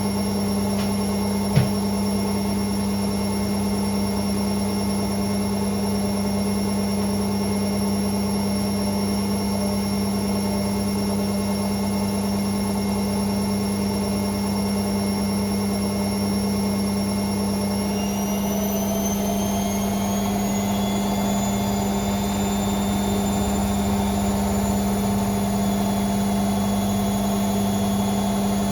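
Hoover Sportswear 1300 washing machine on its fast spin cycle, the motor and drum running with a steady hum. A single click comes near the start. About 18 seconds in, the motor whine rises in pitch as the spin speeds up, then holds.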